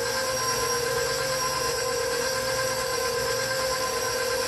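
KitchenAid stand mixer running at a steady speed, its motor whining evenly as the flat beater turns through thick carrot cake batter in the steel bowl.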